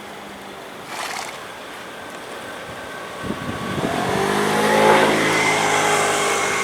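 A motor vehicle's engine comes in about three seconds in, rising in pitch and growing loud, then runs steadily. There is a brief puff of noise about a second in.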